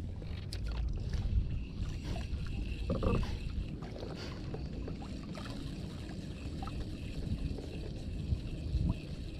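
Wind buffeting the microphone and small waves lapping against the hull of a small boat on choppy open sea, with a brief louder splash or knock about three seconds in.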